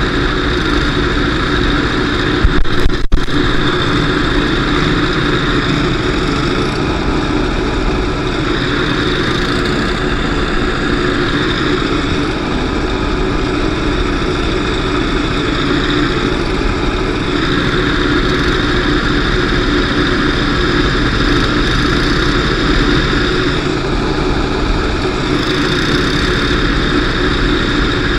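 Demolition derby car engine running hard from onboard, its pitch rising and falling every few seconds as it revs. A loud bang of an impact about three seconds in.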